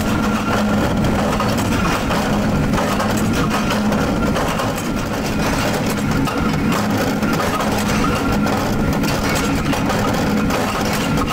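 Flywheel-driven bolt-forging press and workshop machinery running steadily: a continuous low drone that pulses evenly, with many light metallic knocks and clatters as hot rod ends are worked in the die.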